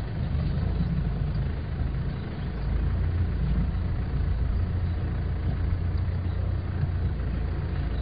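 Land Rover engine running steadily as the vehicle drives off-road, a continuous low rumble heard from on board.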